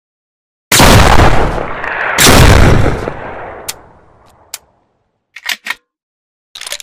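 Sawed-off shotgun fired twice, about a second and a half apart, each loud shot trailing off in a long echoing tail. A few short sharp clicks follow near the end.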